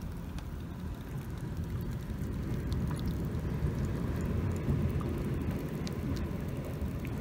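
Muffled water movement in a shallow rock pool, heard with the camera submerged: a low, steady rumble of sloshing water with scattered faint ticks.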